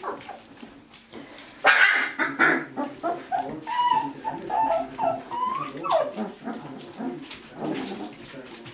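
Three-week-old puppies yipping and whining: a sharp yip just under two seconds in, then a string of short whines that slide up and down in pitch, and another yip near the end.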